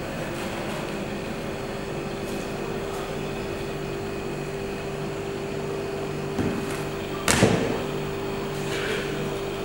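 Steady mechanical hum with a constant low tone, like a motor or compressor running. Two sharp knocks come about six and seven seconds in, the second the louder.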